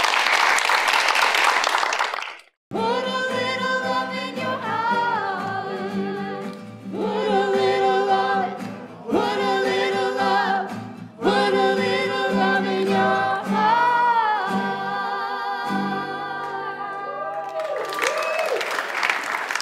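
Applause for about two seconds, then a cut into singing with instrumental backing, phrases of held notes with vibrato, and applause again near the end.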